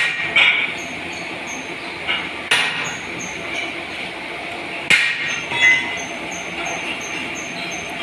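Sharp metal clanks and knocks as metal power loom frame parts and steel rails are handled and set against each other, several a couple of seconds apart. Under them runs a steady workshop din with a faint, fast ticking.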